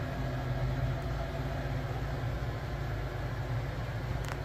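Steady low mechanical hum with a faint hiss over it, like a running room air conditioner or fan, and a faint click near the end.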